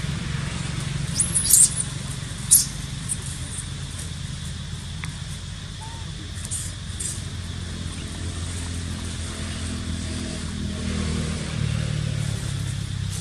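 Steady low motor hum, like a vehicle engine running nearby, slightly stronger near the end. Over it come a few short high-pitched squeaks, loudest about one and a half and two and a half seconds in.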